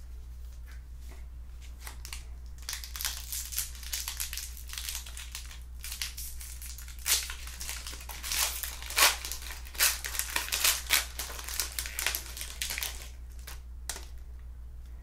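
A trading-card pack wrapper being crinkled and torn open by hand: a run of crackles, loudest in the second half, over a steady low hum.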